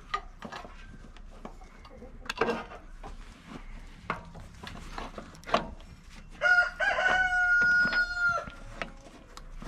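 Scattered light metal clicks and knocks as the magnetic drill is handled on the steel frame, then about six and a half seconds in a rooster crows once, a long call of about two seconds.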